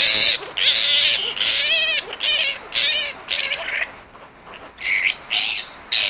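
Juvenile grey-headed flying-fox screaming in a run of short, harsh shrieks, with a brief lull past the middle. It is screaming at being handled, a level of distress that the carer takes as a sign of a significant head injury.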